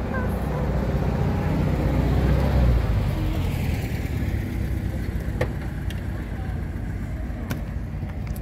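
A motor vehicle's engine running close by, swelling to its loudest between two and three seconds in and then fading away as if driving past. A couple of light clicks follow later.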